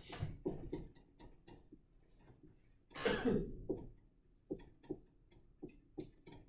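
Faint, irregular taps and clicks of writing on a board, with a short cough about three seconds in.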